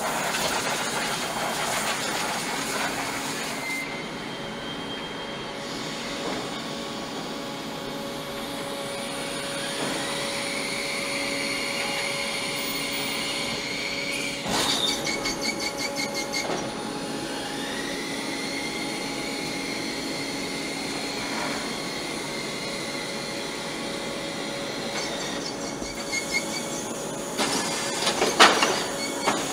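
Factory machinery running with a steady hum. Motor whines rise, hold and fall twice, and there are bursts of rapid metallic rattling about halfway through and again near the end.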